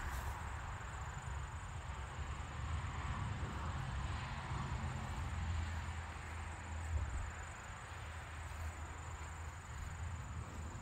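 Outdoor ambience: a steady high drone of insects, crickets or similar, over an uneven low rumble.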